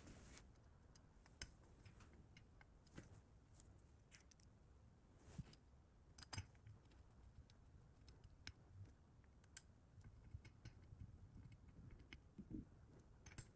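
Faint, scattered clicks and taps of small metal parts and a screwdriver, as a flat spring and two small screws are fitted into a motorcycle fuel cap. The clicks come a few seconds apart over near silence.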